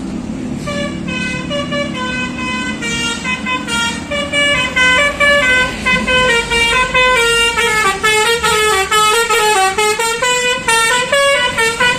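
Basuri multi-tone 'telolet' bus horn playing a melody of short, stepped notes that weave up and down, getting quicker in the second half. A low steady rumble runs underneath.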